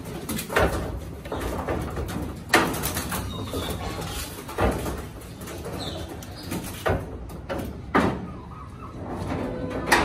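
Sharp knocks, about six of them a second or two apart, as a stick strikes the metal sheeting and mesh of a pigeon loft, with pigeons cooing.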